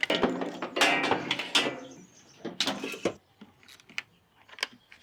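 Hand tools and cables clinking, clanking and scraping as the truck's battery and alternator wiring is taken apart. There is a run of sharp metallic knocks in the first two seconds, then only scattered clicks.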